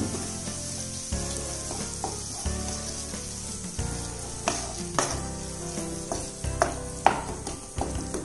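Onion masala with tomato sauce sizzling in a nonstick frying pan while a spatula stirs it, with a steady high sizzle. Sharp scrapes and taps of the spatula against the pan come more often from about four seconds in.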